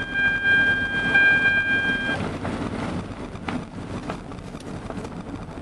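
Road and wind noise of a car driving slowly, heard from inside the car. For about the first two seconds a steady high-pitched tone sounds over it, then cuts off suddenly.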